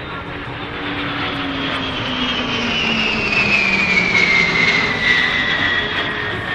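Boeing E-3 Sentry AWACS's four turbofan engines in a flyby. The jet whine swells to its loudest about four to five seconds in, and its pitch falls as the aircraft passes.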